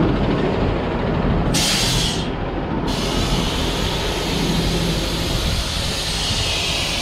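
Heavy truck diesel engine running steadily, with a burst of air hiss about one and a half seconds in that lasts about a second.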